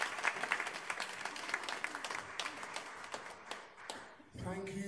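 Applause from many people clapping, a dense patter of hand claps that thins out and fades away about four seconds in. A man's voice begins just after.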